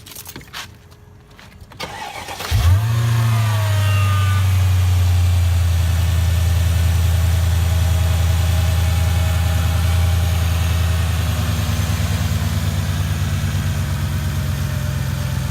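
Mercedes E55 AMG's supercharged 5.4-litre V8 cranking briefly on the starter and catching about two and a half seconds in, with a short flare of revs, then settling into a steady idle. It starts promptly on its newly replaced crankshaft position sensor, the fault behind its no-start.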